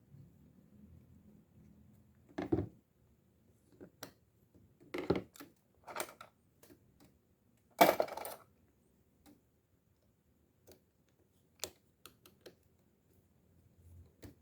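Small metal fishing-reel parts clicking and clinking as they are handled and set down on a hard surface: a string of separate knocks, the loudest about eight seconds in.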